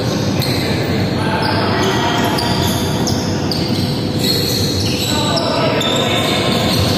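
Indoor volleyball rally: the ball is struck, set about four seconds in and hit at the net near the end, amid players' shoes on the wooden court and their shouts, echoing in a large hall.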